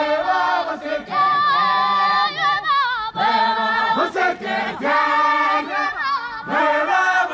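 Group of Zulu dancers singing a traditional song together, in phrases a second or two long with held, wavering notes and short breaks between them.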